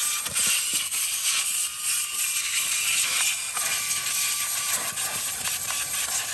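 Compressed-air blow gun with a long wand nozzle hissing steadily as it blasts dirt and debris off the top of a Scania V8 diesel engine.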